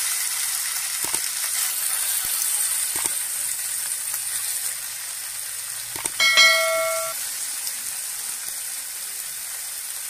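Marinated boneless chicken pieces sizzling in hot oil in a frying pan, the sizzle easing a little as it goes. A couple of soft knocks, and about six seconds in a single metallic clink that rings for about a second.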